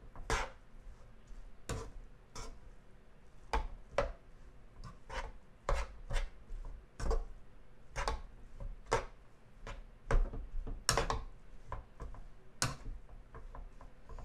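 Metal slotted spoon scraping and knocking against a nonstick frying pan as fried rice is stirred and turned over, about one irregular stroke every half second to second.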